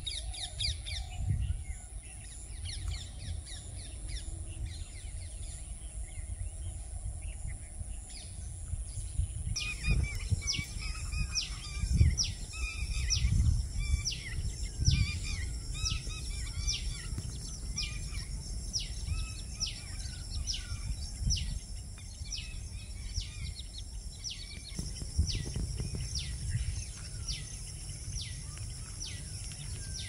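Outdoor bird chorus: many short, quick, downward-sliding chirps repeated over and over, thin at first and much busier from about a third of the way in. Under them run a steady high hiss and a low, uneven rumble of background noise.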